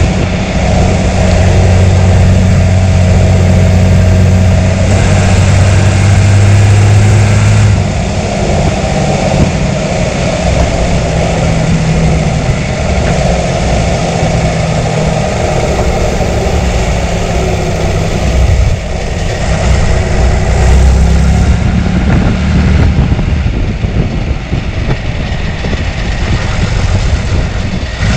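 John Deere 3350 tractor's 6.6-litre six-cylinder diesel engine running, its low note dropping and getting a little quieter about eight seconds in, then shifting again later on.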